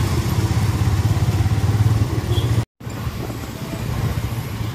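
The rider's motorbike engine running as it moves through traffic, a steady low engine note under road and traffic noise. The sound drops out for a split second a little over halfway through, then carries on a little quieter.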